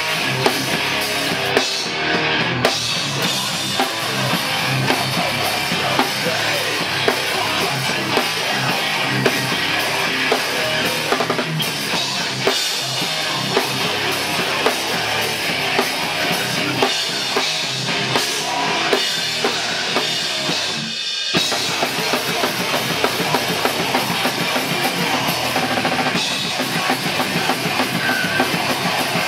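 Hardcore punk band playing live, drum kit to the fore with guitars, loud and dense, with a momentary break about two-thirds of the way through.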